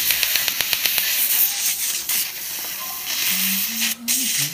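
Dental Er:YAG laser handpiece pulsing on a tooth with rapid, even clicking for about the first second, then a steady hiss of air-water spray at the tooth, dipping briefly near the end.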